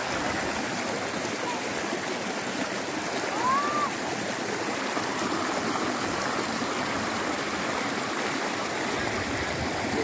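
Shallow stream rushing and splashing over mossy rock ledges in a small cascade: a steady rush of running water.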